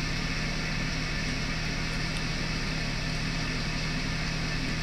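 Steady machine hum: a low drone under an even hiss, with no change in level.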